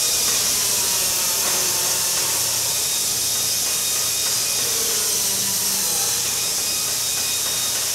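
Steady hiss with a faint low hum underneath, an even workshop background noise that does not change.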